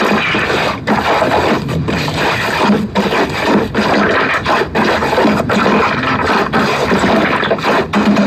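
Slime being kneaded and pressed by hand, a dense crackling, squishing noise with short breaks about once a second.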